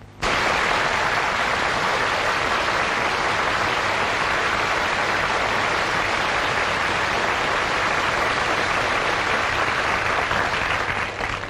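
Studio audience applauding steadily, starting abruptly and thinning out shortly before the end.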